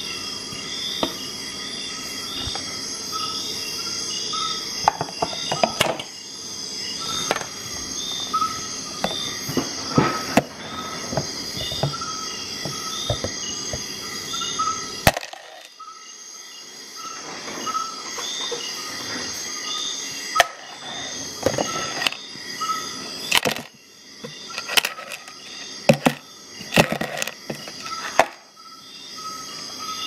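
Insects chirping steadily in a regular rhythm, overlaid by many sharp clicks and knocks, several sharper and louder ones bunched in the second half.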